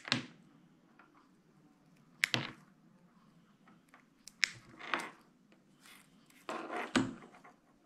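Side cutters snipping through an RC car ESC's insulated wires: a few short, sharp snips spread a second or two apart, with small clicks of the wires and tool being handled between them.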